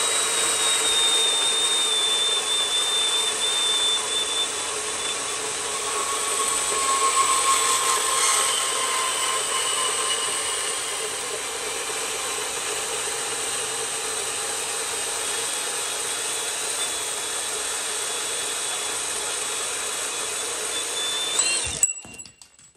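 Hercules cordless deep-cut variable-speed bandsaw cutting through a metal tube held in a vise: a steady motor whine with the rasp of the blade in the metal, ending abruptly near the end as the cut finishes. It is running on a 2.5 Ah battery, smaller than the recommended 5 Ah, and the battery carries it through the whole cut.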